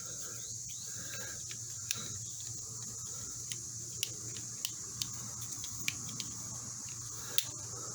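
Scattered light clicks as the stiff joints of an old Leatherman-style multi-tool, treated with WD-40, are worked open and closed. The clicks are irregular, up to a couple a second, over a steady low hum and hiss.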